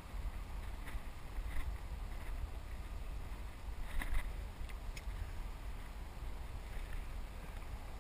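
Steady low rumble of wind and water around a kayak afloat, with a few light clicks and knocks, the sharpest about four seconds in.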